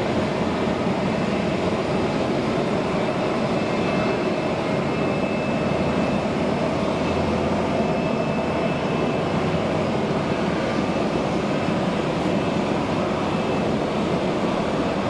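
Steady jet-engine noise from airliners taxiing at idle power, with a faint high whine running through the middle.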